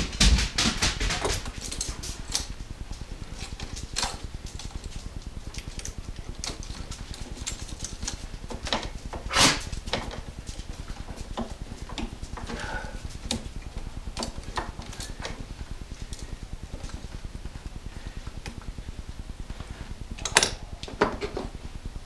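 Hand tools and metal parts clinking and knocking on a car engine during disassembly: a quick run of clicks at the start, one sharp clank about halfway, and a few more clinks near the end.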